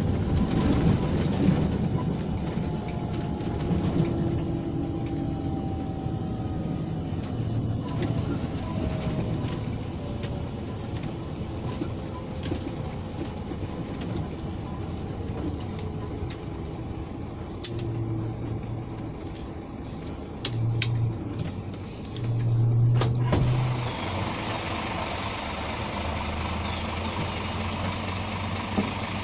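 Scania G460 truck's 13-litre straight-six engine heard from inside the cab. Its pitch falls as the truck slows down. It then pulls away again with a few short engine surges about two-thirds of the way in, the strongest just before the truck settles into a steady run near the end.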